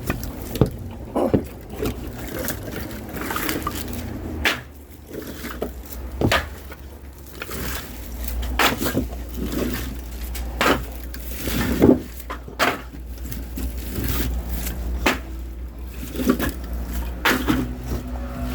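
Irregular knocks and clunks, a dozen or so, over a low steady hum that starts about four and a half seconds in.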